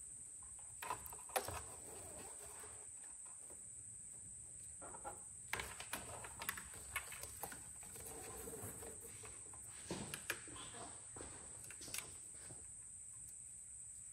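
Faint clicks and short rustles of hands handling engine-bay wiring, plastic connectors and intake hoses, in scattered clusters over a steady high-pitched whine.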